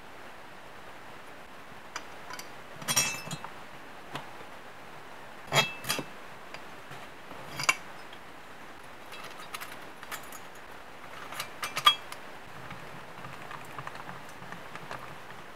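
Metal parts clinking and knocking as a two-stroke moped cylinder and a steel plate are handled and set down among nuts and tools: a dozen or so sharp strikes at irregular intervals, each with a short ring, the loudest near the end.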